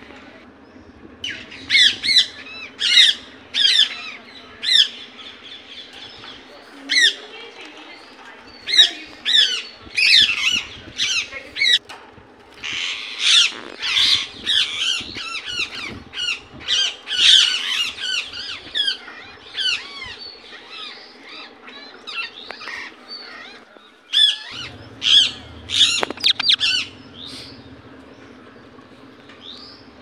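Indian ringneck parakeet calling: runs of short, sharp, high-pitched calls in quick succession, broken by brief pauses, dying away a few seconds before the end.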